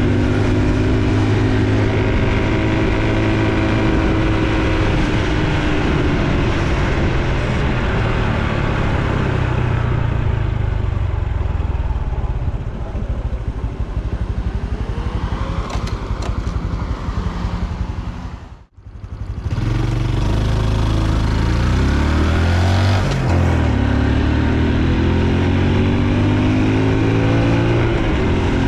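Honda Super Cub C125's single-cylinder four-stroke engine running under way, with road noise. The engine slows and quietens around the middle and the sound cuts out for a moment about two-thirds through. It then picks up again with rising pitch as the bike accelerates.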